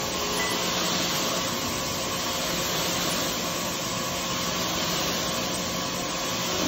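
Pressure-washer wand spraying water onto an area rug: a steady hiss of spray.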